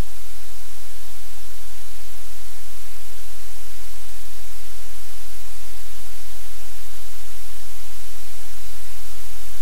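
Loud, steady hiss like static, with a low hum underneath.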